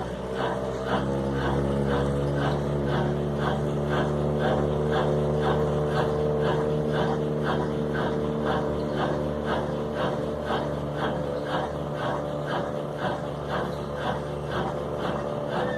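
Consul washing machine in its spin cycle: a steady motor hum whose pitch climbs a little over the first couple of seconds and then holds, with a regular knocking about two to three times a second. This is the strange noise the machine makes while spinning.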